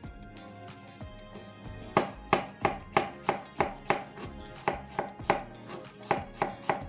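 Zwilling Twin Gourmet kitchen knife cutting apple, the blade striking the board in quick, even chops about three a second, starting about two seconds in.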